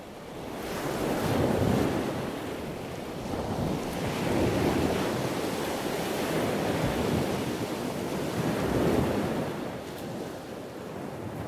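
Ocean surf: waves breaking and washing in, with wind, swelling and easing in several surges.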